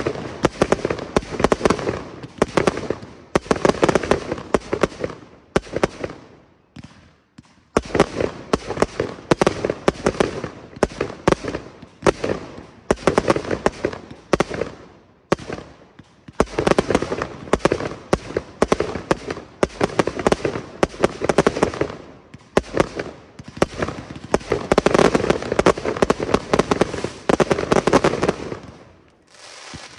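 Fireworks display: a rapid, near-continuous barrage of small aerial shells launching and bursting, dense cracks and bangs, with a short lull about six seconds in and a brief pause near the end.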